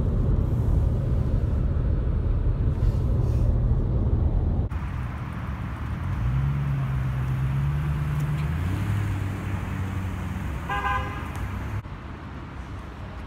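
Steady low road and engine rumble inside the cabin of a moving stretch limousine. After a cut, a car engine runs outside, its pitch stepping down, and a short car horn toot sounds near the end.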